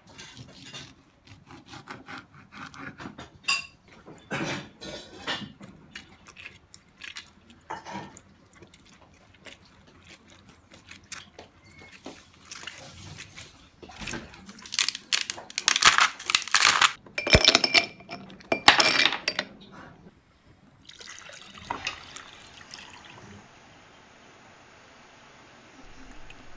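Kitchen sounds of making lemonade: a knife slicing lemons on a wooden cutting board in many short taps and cuts, then louder stretches of liquid being handled and poured.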